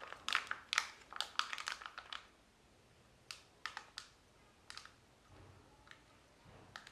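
Plastic Kinder Joy egg shells clicking and crinkling as one is grabbed from a pile, a dense clatter for about two seconds, then a few scattered crinkles as the foil seal is peeled off the egg's plastic half.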